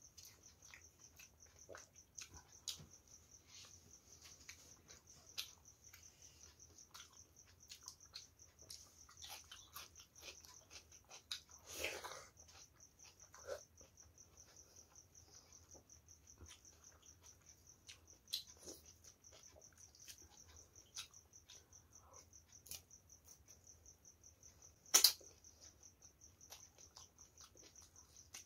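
Close-up eating sounds: quiet chewing and wet mouth clicks, with fingers squishing rice and curry against a steel plate, and one sharp click near the end. A steady high-pitched trill runs underneath.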